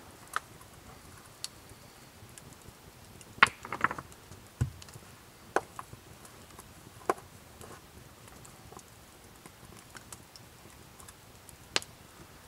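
Wood campfire crackling with scattered sharp pops, the loudest a quick run of snaps about three and a half seconds in, followed by a single dull knock.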